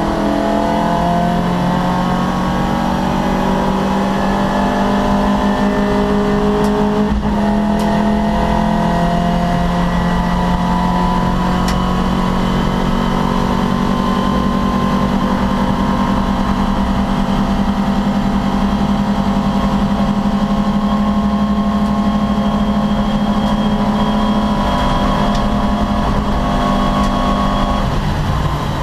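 Opel Kadett C racing car's engine pulling hard, its pitch climbing, with a quick gear change about seven seconds in and then a long, slow climb in a high gear; the engine eases off near the end.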